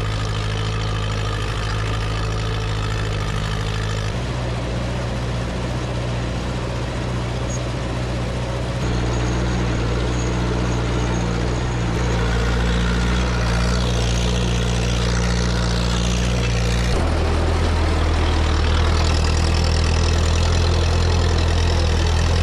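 Massey Ferguson 35 tractor engine running steadily under the load of pulling a disc harrow through sod. The engine note changes abruptly to a different pitch a few times.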